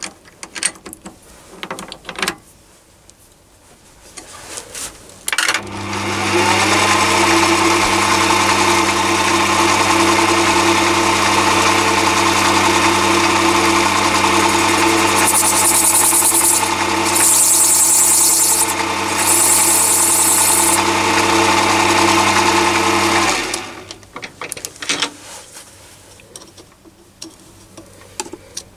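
Chinese mini lathe's motor and gear train starting up about five seconds in, running up to speed and then steadily, and stopping about six seconds before the end, with handling clicks before and after. Midway through, three short stretches of high hiss from the turning tool making facing cuts across the end of a polycarbonate tube.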